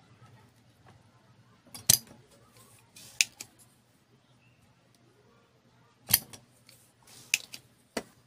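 Spring-loaded solder sucker (desoldering pump) snapping as its plunger is released to suck molten solder off a component's pins, with smaller clicks from cocking and handling it. There are a few sharp snaps, the loudest about two seconds in and again about six seconds in.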